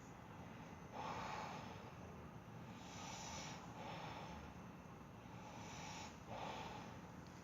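A sleeping person snoring, with noisy snorting breaths coming every couple of seconds.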